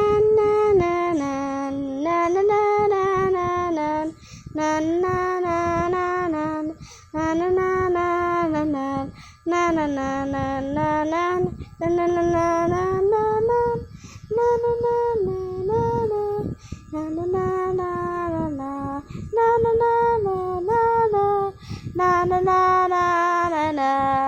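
A young girl's voice singing a wordless tune in held notes, one short phrase after another with brief breaks: a made-up dance melody.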